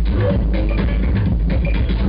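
Electronic dance music with a heavy bass and a steady beat, played over a club sound system.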